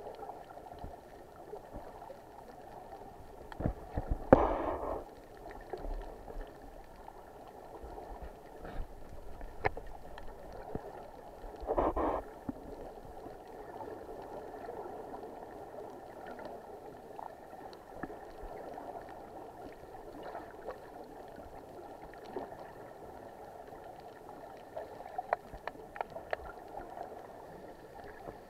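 Muffled underwater sound through a camera housing: a steady hiss with scattered faint clicks, and two louder bursts of bubbling, about four and about twelve seconds in, from snuba divers exhaling through their regulators.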